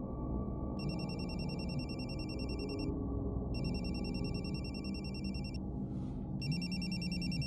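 Telephone ringing: three rings of about two seconds each, with short pauses between them, over a low steady drone.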